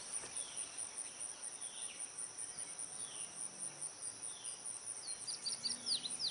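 Outdoor insect chorus: a steady, high, pulsing trill of about six pulses a second, with a few short, high, falling chirps near the end.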